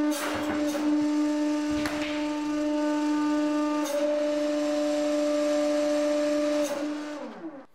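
A 150-ton hydraulic press's pump running with a steady pitched hum, with a few sharp knocks, as the ram lifts off the crushed copper-steel-copper stack. Near the end the hum falls in pitch and dies away as the pump stops.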